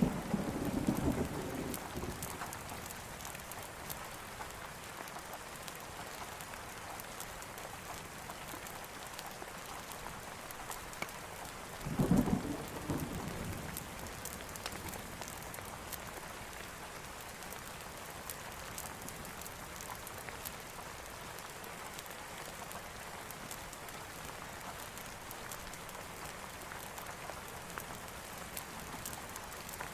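Steady rain falling, with thunder rumbling twice: one rumble dying away in the first couple of seconds and a louder one about twelve seconds in. Faint scattered crackles of a wood fire run under the rain.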